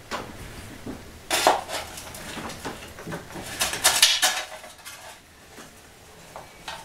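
Hand-cranked bead roller running a bead into a thin embossed aluminium stovepipe-elbow section: irregular metallic crinkling and rattling of the sheet as it feeds through the rollers. It is loudest about one and a half seconds in and again around four seconds, and quieter near the end.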